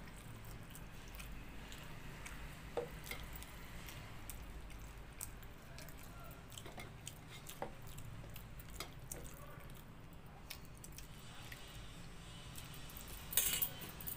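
Eating by hand from steel dishes: scattered small clicks and clinks of fingers and food against a steel plate. Near the end there is one louder, brief noise as a hand goes into the steel bowl of water-soaked rice.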